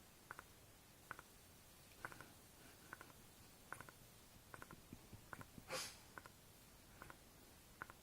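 Small dog snoring softly in its sleep: faint, short crackly snores repeating a little under once a second, with one louder snort about two-thirds of the way in.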